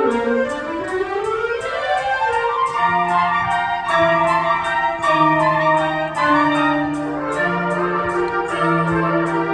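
A high school band playing a concert piece. An upward-sweeping passage runs through the first two seconds or so, then held brass chords sound over a low bass line, with a steady high percussion beat about three times a second.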